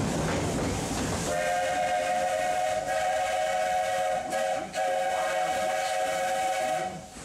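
A steam locomotive's chime whistle sounds two long blasts, several notes sounding together, with a brief break a little past halfway. Before the whistle starts about a second in, the train is heard running with a steady rumble.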